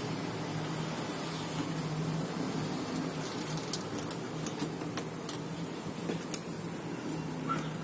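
A dog eating dry kibble from a plastic bowl: irregular crunches and clicks, thickest in the middle of the stretch, over a steady low hum.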